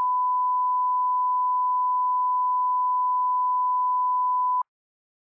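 Line-up test tone played with colour bars: one steady, pure, beep-like tone that cuts off abruptly near the end.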